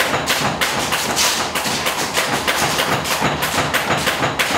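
Boxing gloves landing on punch bags and pads: a fast, irregular run of thuds and slaps, several a second, with no let-up.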